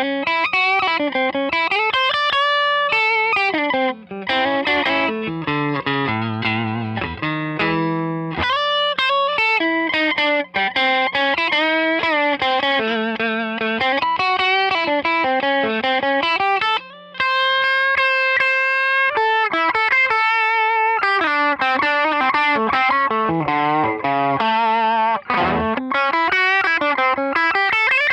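1994 Hamer Chaparral electric guitar through a Tone King Imperial MK II amp on a crunch setting, mildly overdriven, playing a continuous lead line with bent and wavering notes and one long held note about two-thirds of the way through.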